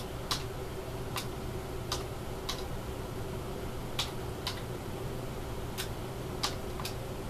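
Sharp, short clicks at uneven intervals, about one a second, over a steady low hum.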